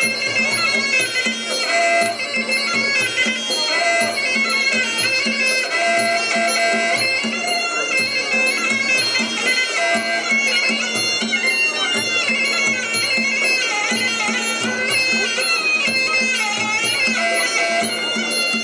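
Traditional Muay Thai fight music (sarama): a reedy Thai oboe (pi java) plays a wailing, bending melody over a steady drum beat.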